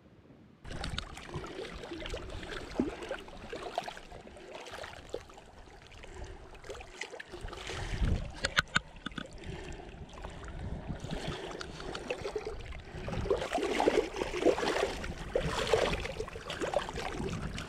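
Shallow lake water sloshing and splashing over rocks as a hand holds a rainbow trout in it for release, with a few sharp clicks about halfway and louder splashing over the last few seconds.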